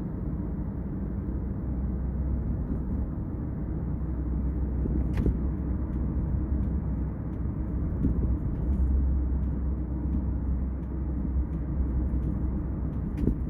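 Steady low road and engine rumble inside the cabin of a Kia K5 sedan cruising at highway speed.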